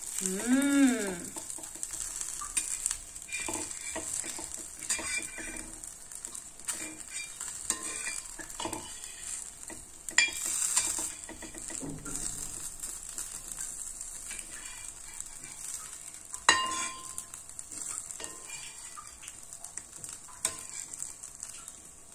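Tiny dosas sizzling in oil on a tawa while a metal spatula scrapes and taps on the pan, flipping them one at a time. The frying hiss is steady under the spatula's clicks, the sharpest about ten and sixteen seconds in. A brief voice sounds near the start.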